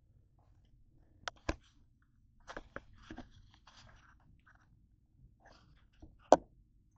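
Handling noise as the camera is carried from the stove and set down on a kitchen counter: scattered clicks and knocks with faint rustling between, the loudest knock about six seconds in.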